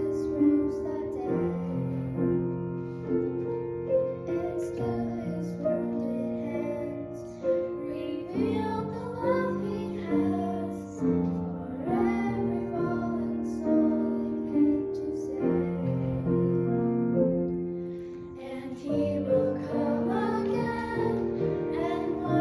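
Voices singing a slow sacred song to piano accompaniment, the piano holding sustained chords under the sung melody.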